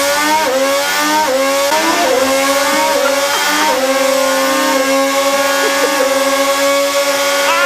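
Honda 2026 Formula 1 power unit (turbocharged V6 hybrid) revving. Its pitch climbs in steps through upshifts, drops in sharp blips on the downshifts, then holds steady.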